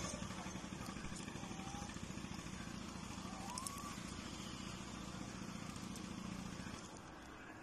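A motor vehicle's engine running steadily as a low hum, dropping away about seven seconds in. A couple of faint short rising calls sound over it.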